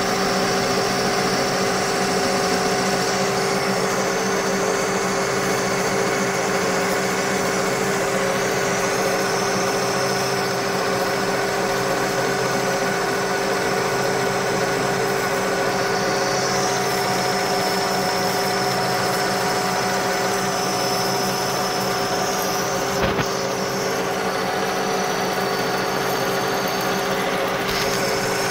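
Metal lathe running steadily, its motor and geared headstock giving an even mechanical hum with a fixed whine. There is a single short tick about 23 seconds in.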